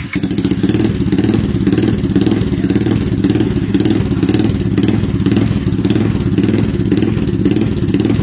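Modified Yamaha Y15ZR motorcycle's single-cylinder four-stroke engine running steadily and loudly through its exhaust, a fast even pulse with no changes in speed.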